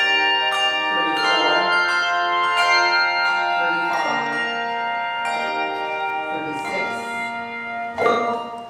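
A handbell choir ringing a tune in chords, overlapping bell tones struck about once a second and left to ring. A final chord sounds about eight seconds in and dies away quickly.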